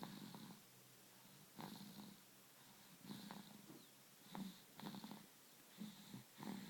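A three-month-old baby boy snoring faintly in his sleep: short snores repeating at uneven gaps of about a second, some seven in a row.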